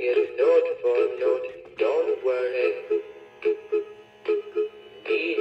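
Big Mouth Billy Bass animatronic singing fish playing its recorded song: a male voice singing over music, thin and with little bass, through the toy's small built-in speaker.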